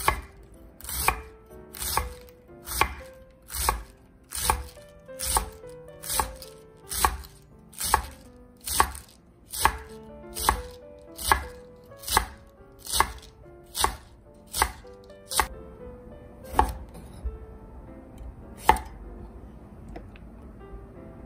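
Kitchen knife shredding cabbage on a wooden cutting board: steady, evenly paced chops a little faster than one a second, each blade knocking on the board. Near the end they thin out to a few single cuts.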